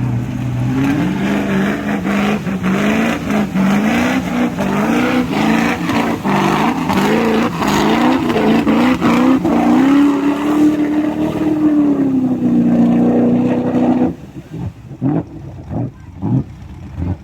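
Willys jeep's V8 engine revved hard in a quick series of rising and falling blips, then held at high revs for a few seconds before dropping back sharply near the end.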